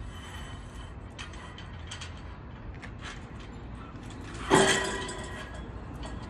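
Flagpole halyard running through its pulley as flags are hoisted: scattered short squeaks and clicks, and one loud ringing clank about four and a half seconds in.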